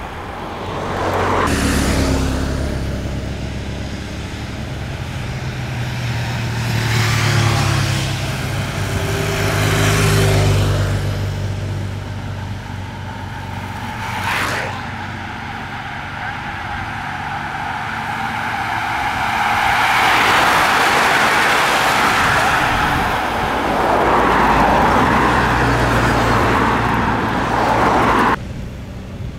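Motor vehicles driving past along a road, their engines swelling and fading several times in the first half, with one sharp click midway. This is followed by a long steady rush of tyres and air as the bunch of racing cyclists goes by, which cuts off suddenly near the end.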